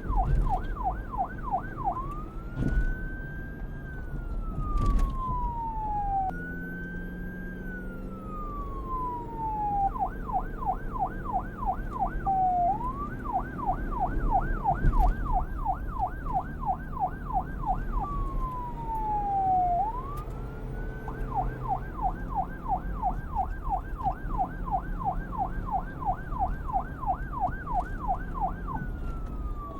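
Electronic police siren switching back and forth between a rapid yelp, several pitch sweeps a second, and slower wail sweeps that climb and then slide down over a couple of seconds, above a low steady rumble.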